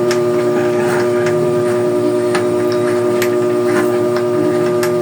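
A steady hum of several held tones, with scattered metal clicks and clinks from a puller tool working loose a bicycle's rear sprocket.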